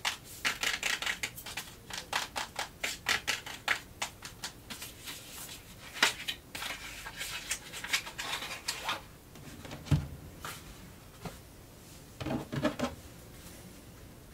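Fingernails tapping quickly on a cardboard tarot-deck box, several taps a second for about nine seconds. Then come a few scattered taps, a dull thump about ten seconds in, and a short flurry of taps near the end.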